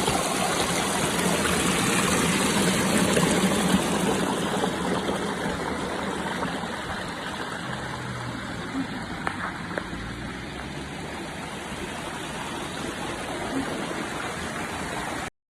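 Steady rushing of running water, like a stream or waterfall, easing a little after a few seconds and cutting off suddenly near the end.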